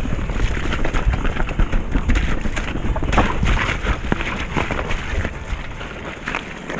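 Mountain bike riding fast down a wet, muddy, rocky trail: tyres rumbling over mud and stone, with a rapid run of knocks and rattles from the bike over the rocks, busiest about three seconds in. Wind buffets the microphone.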